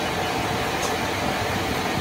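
A machine running steadily with an even hum and a constant mid-pitched tone.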